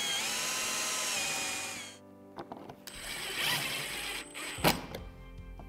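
Cordless drill spinning up and running steadily for about two seconds as it drills a small screw hole in a boat's dash, then stopping. After it come quieter scraping sounds as a screw is turned in by hand with a screwdriver, and a single sharp click near the end.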